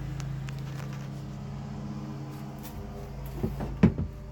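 A steady low hum, with a short clatter of knocks about three and a half seconds in, the loudest a single sharp knock near the end.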